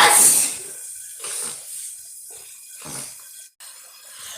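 A woman sneezes once, loudly: a short rising 'ah' breaks into a sharp, hissing 'choo'. Fainter short breathy sounds follow about one and three seconds later.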